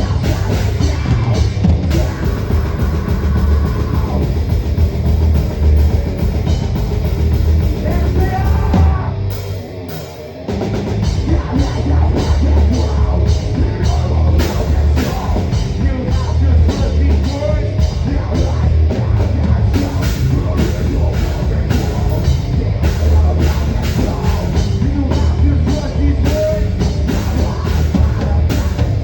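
Heavy metal band playing, heard raw from the drummer's position with the drum kit prominent. The band drops out briefly about nine seconds in and comes back in full a second or so later.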